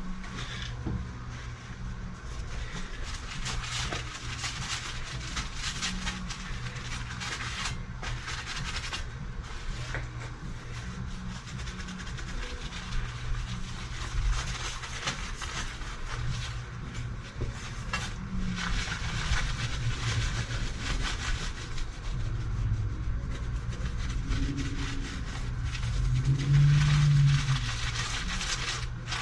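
Steady low hum with scattered light knocks and rustles; a short louder low tone sounds about 26 seconds in.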